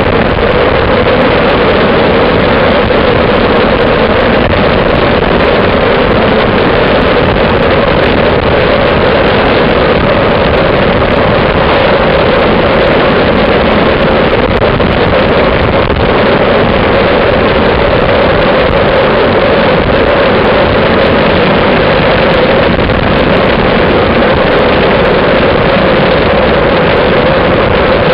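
Loud, steady wind rush on the microphone of a camera riding on a road bike at speed, blended with road noise, unbroken throughout.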